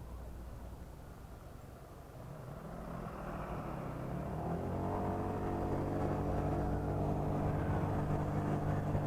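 Honda PCX scooter's single-cylinder engine pulling away under the rider: the revs climb about three seconds in, then hold at a steady pitch as the belt-drive automatic takes up, over road and wind noise.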